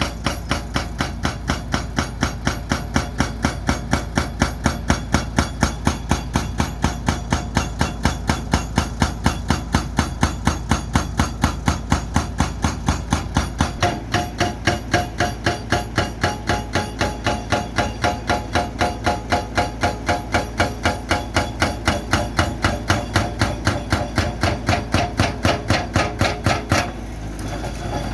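Hydraulic breaker on a Sany excavator hammering concrete in a fast, even rhythm of about three to four blows a second, over the steady running of the excavator's engine. The hammering stops near the end.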